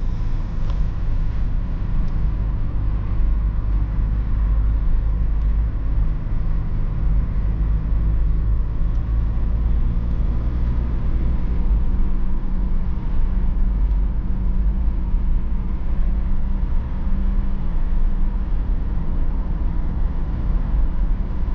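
Inside the cabin of a BMW E46 320d on the move: the steady low drone of its 150 hp four-cylinder diesel cruising, mixed with road noise, with no sudden changes.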